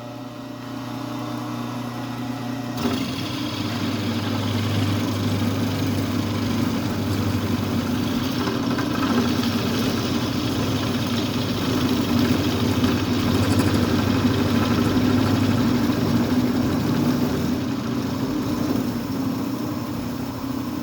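Milling machine running with a steady hum as it mills the end of 80/20 aluminium extrusion. About three seconds in the sound changes and grows louder, as the cutter bites into the metal.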